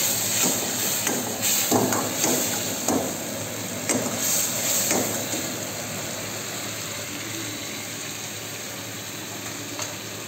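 Commercial gas wok burner running with a steady rushing hiss under a wok of simmering vegetables and liquid, with a few ladle knocks against the wok in the first half.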